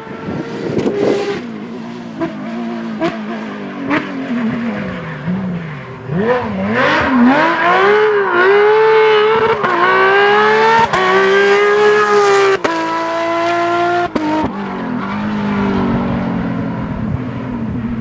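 Porsche 997 GT3 rally car's flat-six engine revving hard as the car comes on at speed. The pitch climbs again and again with short dips at each gearshift and is loudest about two-thirds of the way through. It then drops suddenly and fades to a lower note as the car goes by.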